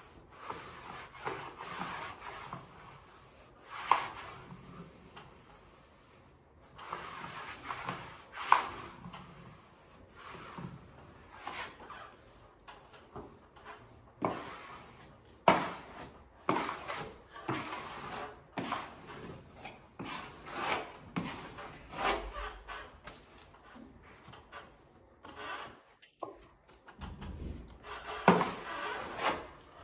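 Irregular rubbing and wiping strokes against a papered wall, with a few sharper, louder scrapes among them.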